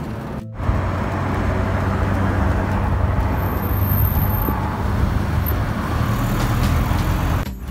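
Steady rumbling wind and road noise on the microphone of a phone filming from a moving bicycle. It drops out briefly about half a second in, then carries on evenly.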